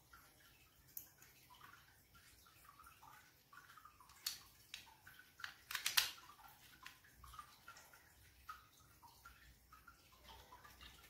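Faint clicks and taps of handling a plastic toy locomotive and working a small tool or wire into it, with a louder cluster of sharp clicks about six seconds in.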